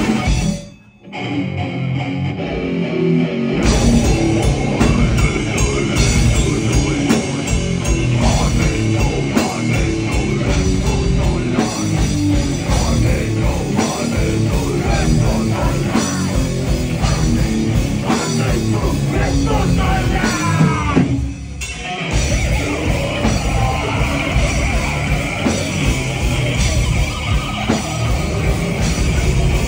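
Live heavy metal band playing loud: distorted electric guitar, bass guitar, drum kit and vocals. The music cuts out sharply about a second in and comes back in full a few seconds later. There is another short break about two-thirds of the way through.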